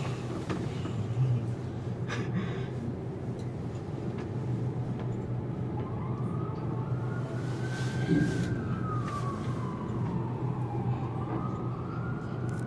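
An emergency vehicle siren wailing, starting about halfway through with slow rises and falls in pitch, over a steady low hum.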